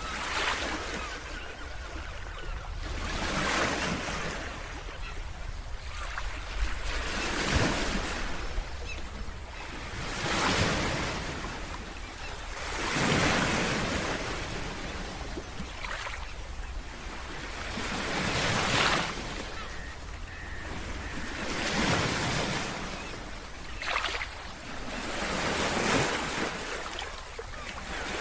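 Big ocean waves breaking on a beach, one surge of crashing surf after another about every two to three seconds, with a steady low rumble of wind on the microphone underneath.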